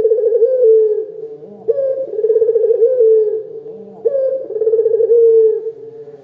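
Puter dove (Barbary dove) cooing: three loud, rolling coos with a trilled middle, one about every two and a half seconds.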